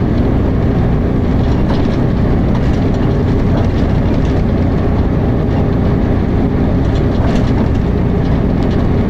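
Dennis Arrow double-decker bus heard from inside the saloon while under way: a loud, steady engine and drivetrain rumble with light rattles.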